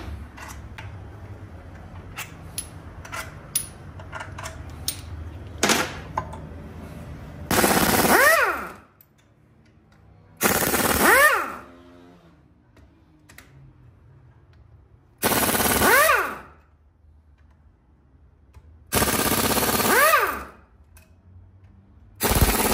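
Impact wrench run in five separate bursts of about a second each, rattling as it works bolts loose on an engine, each burst ending in a short rising-then-falling whine. Before the first burst come light metallic clicks and knocks of tools over a low hum.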